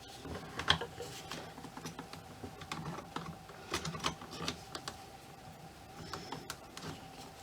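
Irregular small clicks and taps of hard doll and armor parts knocking together as a ball-jointed doll's hand and a large armor gauntlet are handled and fitted.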